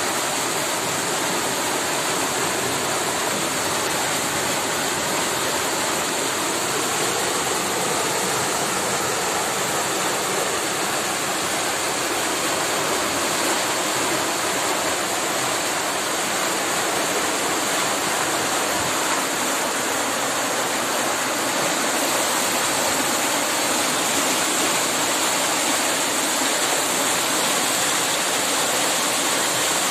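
Floodwater from heavy rain surging past in a fast torrent: a steady, unbroken rush of water.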